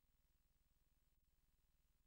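Near silence, with only a faint, steady low hum.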